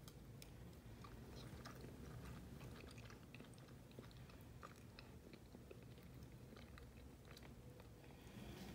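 Near silence: low room hum with scattered faint, soft clicks.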